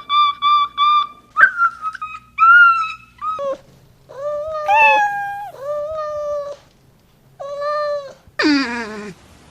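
Cat meowing: a run of short, quick, high mews, then several separate meows about a second apart, and a last call that falls in pitch near the end.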